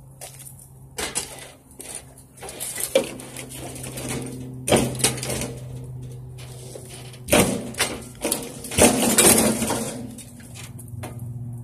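Lesco 48-inch walk-behind mower being rolled down metal trailer ramps: irregular clanks and rattles of the wheels and frame on the ramps, loudest a little past the middle and again about three-quarters through, over a steady low hum.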